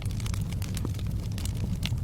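Wood fire burning in a fireplace: a steady low rumble of the flames with irregular sharp crackles and pops of the logs.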